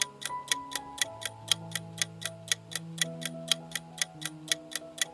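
Clock-ticking countdown timer sound effect, an even tick about four times a second, over soft background music of held notes.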